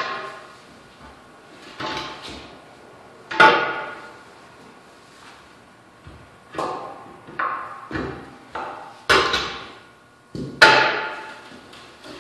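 Hand tire-mounting bar clanking against the steel wheel rim as the bead of a 19.5L-24 backhoe tire is levered on, about ten irregular hits with a short metallic ring after each. The loudest come about three and a half and ten and a half seconds in.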